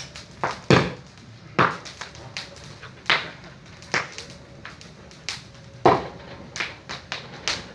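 Bonfire popping with sharp, irregular cracks about once or twice a second, some much louder than the rest. The people watching take them for the wall's plaster bursting in the heat.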